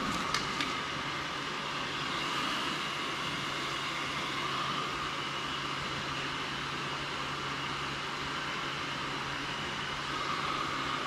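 Steady machine hum and hiss, with two light clicks about half a second in.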